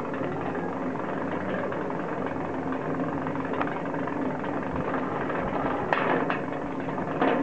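Ski lift station running: a steady mechanical hum and rumble from the turning bullwheel and haul rope, with a few short clacks as carriers pass through the wheels, two close together about six seconds in and another near the end.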